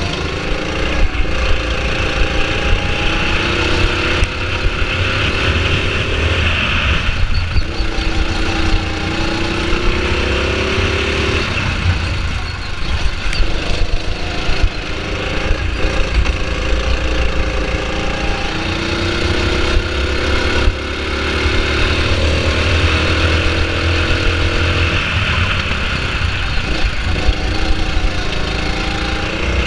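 Go-kart's small petrol engine running hard on a lap, its pitch rising several times and dropping off in between, over heavy wind rumble on the microphone.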